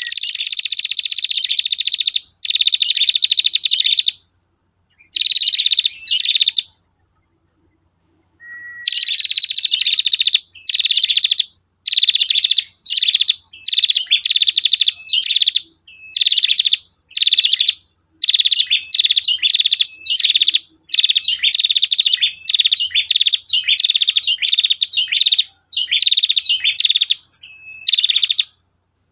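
Female prinia (prenjak) giving its long rattling "tirr" trill over and over. It starts with a few long trills of up to about two seconds each, falls silent for about two seconds, then runs on in a fast series of shorter trills.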